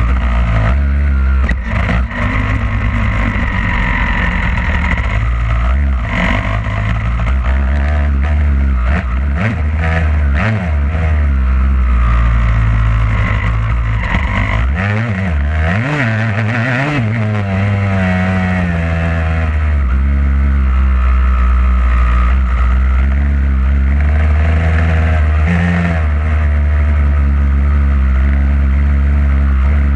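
Two-stroke Yamaha YZ motocross bike engine running hard under the rider, its pitch rising and falling as the throttle is worked, dipping and climbing sharply about halfway through.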